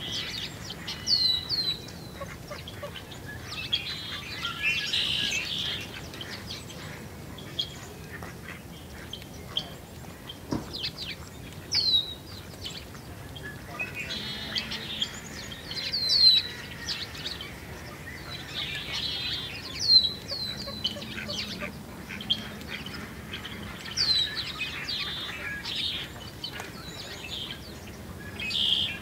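Small songbirds calling around a feeder: short, sharp notes that drop in pitch, repeated every few seconds, with spells of buzzy chattering in between.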